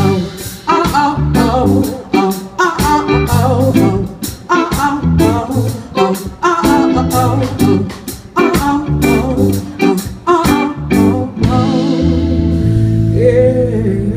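Live band playing amplified through the stage speakers: drum kit keeping a beat under bass and guitar, with the singer's voice over it. About eleven seconds in the drums stop and the band holds a sustained chord while a voice slides over it.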